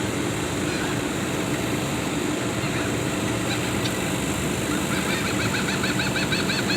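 Steady traffic hum, and about five seconds in a bird starts calling in a fast, rapid series of high repeated chirps.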